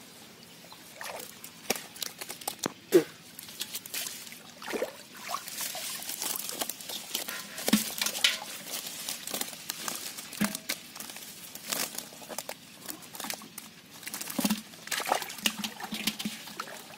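Live fish flapping in a cast net on wet mud and shallow water: irregular wet slaps, splashes and clicks, with the net rustling as the catch is handled.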